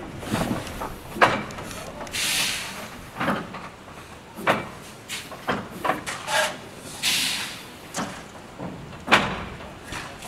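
Andrew Barclay 0-4-0 saddle-tank steam locomotive moving slowly with steam venting from its cylinders. Two long hissing blasts of steam come about five seconds apart, among irregular sharp metallic clanks and knocks.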